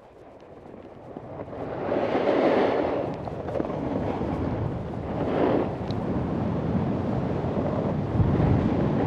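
Snowboard sliding down a snowy piste, the board scraping over the snow and swelling twice, about two and five seconds in, over a low wind rumble on the microphone.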